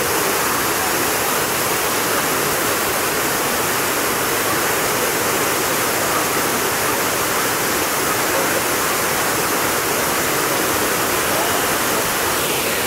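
Steady rushing roar of a waterfall: falling water pouring into a pool, loud and unchanging.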